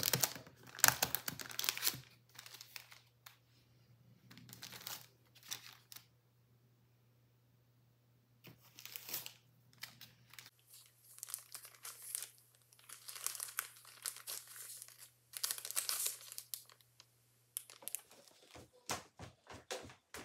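Paper greeting cards and envelopes being picked up and handled: irregular bursts of paper rustling and crinkling, with quiet gaps between them. A few light taps near the end.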